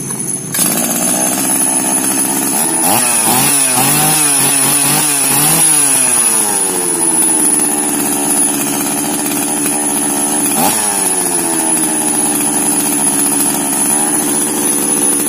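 Small 62 cc two-stroke chainsaw engine running now that its replaced ignition coil gives a spark. About three seconds in it is revved several times, pitch rising and falling; there is one more short rev near eleven seconds, then it settles to a steady idle.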